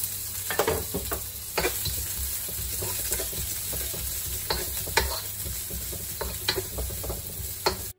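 Sliced onions sizzling in hot olive oil in a wok, stirred with a wooden spatula that scrapes and knocks against the pan about a dozen times at irregular intervals.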